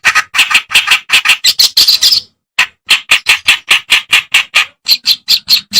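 Reed warbler (kerak basi) singing: a fast run of harsh, rasping, chattering notes, about four to five a second, broken by a short pause a little after two seconds in.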